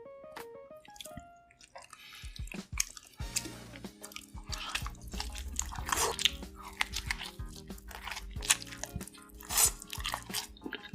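Close-miked eating sounds, bites and chewing of noodles with cheese and sausages, many short sharp clicks over background music. The music plays a short melody of single notes, then settles into sustained chords from about three seconds in.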